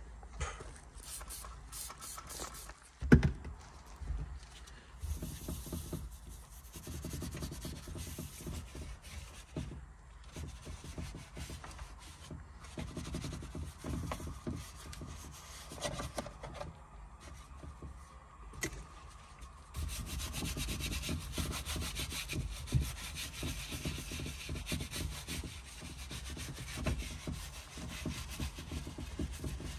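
Detailing brush scrubbing foamed interior cleaner into a perforated-leather steering wheel in quick, scratchy back-and-forth strokes. There is one sharp knock about three seconds in, and the scrubbing gets louder about two-thirds of the way through.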